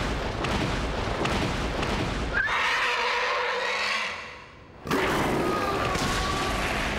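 Giant-monster (kaiju) roar sound effects. A loud rumbling noise is followed about two and a half seconds in by a screeching monster cry that fades out, then a second roar starts suddenly near the five-second mark.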